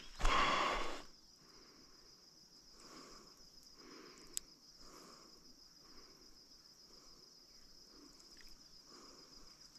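Insects droning steadily in one high thin tone. A short loud rustling scrape comes in the first second, then faint soft scrapes every half second or so, with one sharp click about four seconds in.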